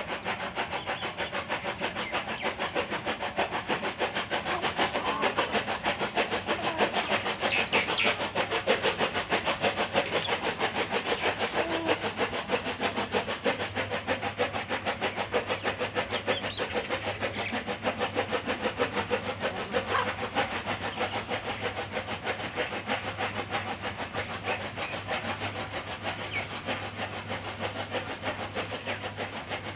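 A motor running steadily with a rapid, even pulse and a low hum underneath.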